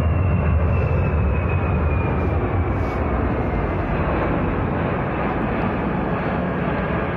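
The four turbofan jet engines of a C-17 Globemaster III flying over: a steady jet roar with a high whine that slides slowly down in pitch, the whole sound fading gradually.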